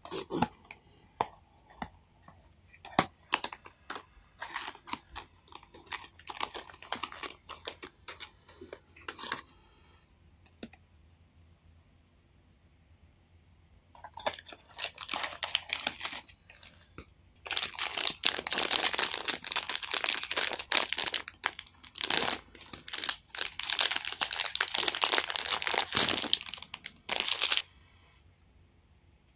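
A cardboard blind box is handled and opened, with scattered clicks and scrapes of the card flap over the first ten seconds. From about fourteen seconds in come long spells of dense crinkling and tearing as the sealed plastic wrapper around the toy figure is ripped open and crumpled. These stop shortly before the end.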